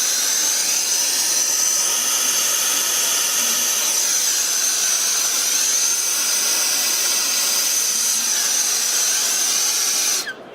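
Gas soldering torch with a number 3 tip burning, a steady hiss with a high whistle, as it heats a copper pipe joint to draw soft solder through it. The hiss stops suddenly near the end, followed by a couple of faint clicks.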